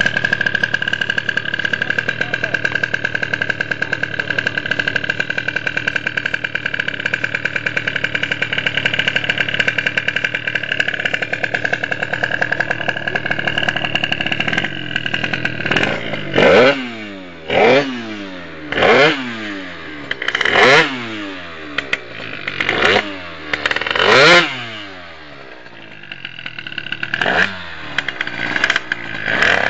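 Malaguti F12 scooter's tuned two-stroke engine, with a Malossi 7T cross cylinder and a handmade ROOST expansion exhaust, running with a steady high-pitched note for about fifteen seconds. It is then revved hard at standstill in about seven sharp blips, each rising in pitch and falling back.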